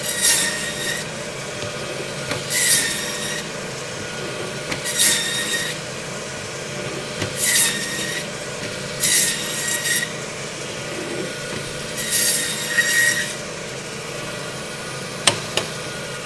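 Meat band saw running steadily, its blade cutting through beef short loin bone six times in quick succession as porterhouse and T-bone steaks are sliced off. Each cut is a brief high rasping squeal lasting under a second. A single sharp knock comes near the end.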